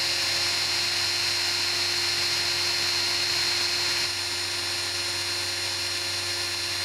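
Cordless drill running steadily under load, a 3/32-inch bit boring an oil hole through the way of a metal planer's cast-iron base. It becomes a little quieter about four seconds in.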